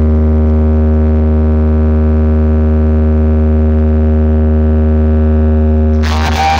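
Loud, steady low bass drone with a buzzy stack of overtones, played as a speaker-check tone through a DJ sound system's wall of speakers and stacked amplifiers. About six seconds in, music with guitar comes back over it.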